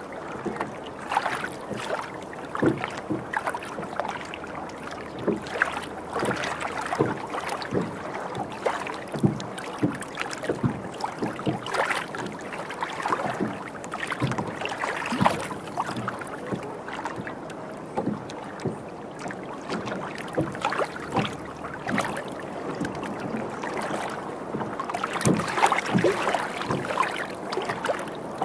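Water slapping and splashing against the bow hull of a Duffy electric boat under way, in irregular slaps over a steady wash.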